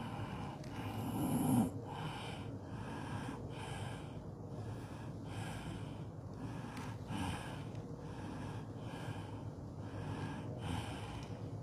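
A gathering doing breathed dhikr in unison: strong, breathy exhalations repeat in a steady rhythm, about three every two seconds. The loudest surge comes about one and a half seconds in.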